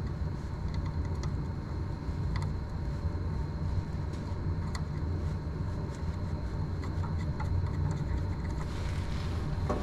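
Steady low rumble with a faint high steady tone, and a few small scattered clicks as pins are fitted by hand into the Prusa XL 3D printer's tool dock.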